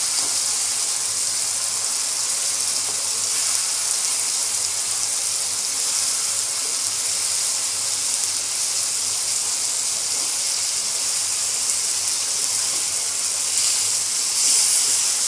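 Marinated chicken pieces sizzling in hot oil in a pan on a high flame as they are fried and turned: a steady high hiss, a little louder near the end.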